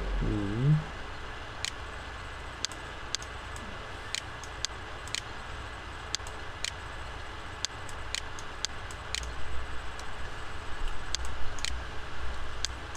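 Sharp, irregular clicks of a computer mouse, roughly one every half second to second, with a short low voiced hum right at the start and a low rumble building in the second half.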